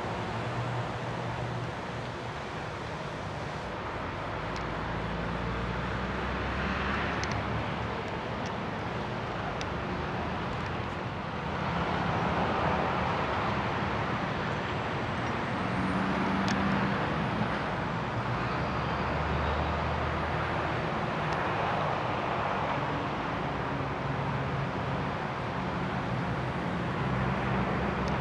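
Gottwald mobile harbour crane's power unit running in a steady drone while it works a clamshell grab, its low hum shifting in pitch and getting louder about twelve seconds in.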